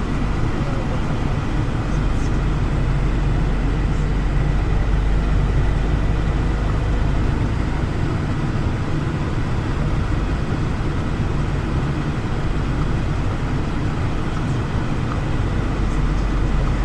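Passenger train running: a steady low rumble with a faint, steady high whine over it.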